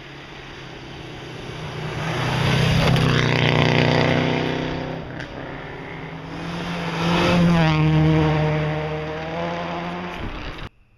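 Rally car engine running hard at speed as it goes by, swelling loud twice, with its pitch falling as it passes. The sound cuts off suddenly near the end.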